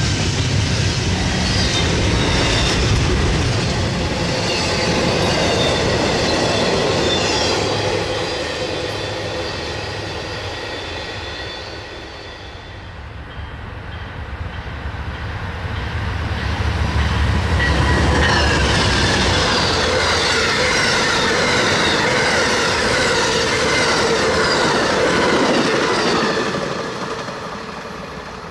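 Train rolling past, wheels clacking over the rail joints with steady wheel squeal. It eases off about halfway, grows loud again, and fades near the end.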